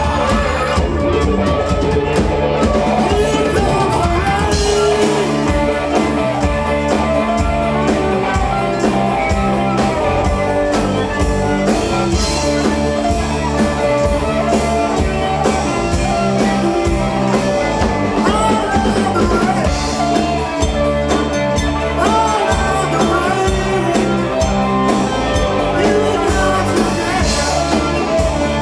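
Rock band playing a song at a steady, loud level, with a drum kit keeping a regular beat under guitars.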